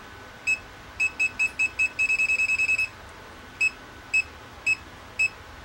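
Mustool U0 multimeter's non-contact voltage detector beeping as it is held near a live power cord, sensing the voltage in the wire. Short high beeps, singly at first, then quickening into rapid beeping about two seconds in, then slower single beeps about every half second.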